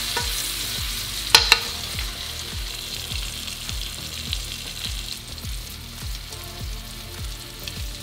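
Cicada nymphs frying in butter and garlic in a nonstick pan, a steady sizzle as they are stirred. A utensil clicks twice against the pan about a second and a half in.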